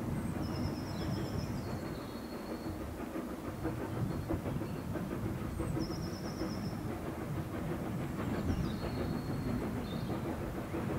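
Hunslet Austerity 0-6-0 saddle tank steam locomotive approaching, its exhaust chuffing steadily with rail noise. Short high whistled bird phrases come over it three times: about half a second in, around six seconds and near nine seconds.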